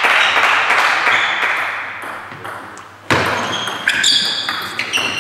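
A table tennis rally: the plastic ball clicking off the bats and pinging on the table several times in quick succession, starting about three seconds in. Before it, a hiss of hall crowd noise fades away.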